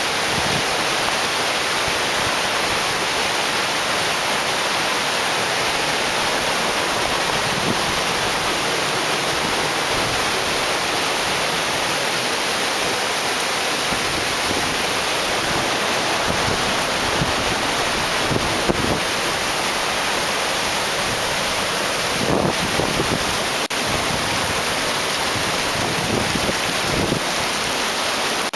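Fast, rain-swollen canyon stream making a steady, even rushing noise. A few low wind bumps hit the microphone in the second half.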